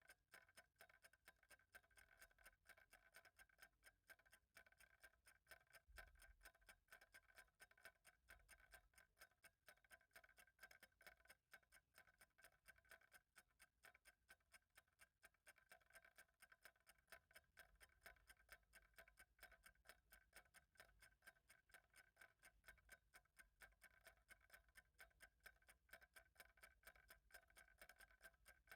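Faint clock ticking at a steady, even rhythm.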